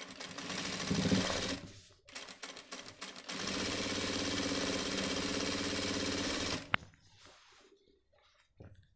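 Jack industrial sewing machine stitching a folded shirt hem in short runs. It sews for about two seconds, gives a few brief stutters of stitches, then runs steadily for about three seconds and stops with a sharp click.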